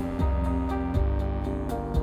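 Background music: calm new-age piece with sustained pitched notes over a low bass that changes about once a second, with a light steady beat.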